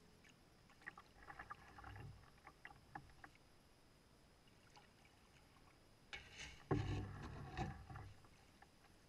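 Canoe in shallow water with faint water drips and trickles at the hull, then about six and a half seconds in the hull runs aground onto a gravel beach with a thump and a gritty scrape lasting a second or so.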